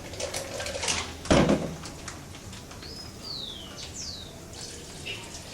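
A single dull thump about a second in, then two short bird chirps, each sliding down in pitch, around three and four seconds in.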